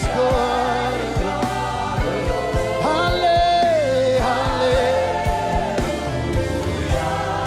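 Live gospel worship music: a congregation and worship team singing a slow, sustained melody over keyboard and band accompaniment with a steady kick-drum beat.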